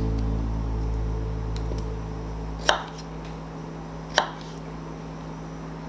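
Knife blade knocking down onto a wooden cutting board twice, about a second and a half apart, while cutting soft baked butternut squash into pieces.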